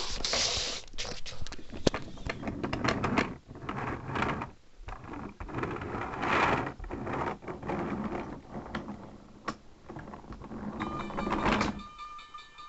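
Wooden toy trains being pushed along wooden track: a rough rolling rattle with many clicks and knocks, stopping abruptly near the end, where a few steady high tones begin.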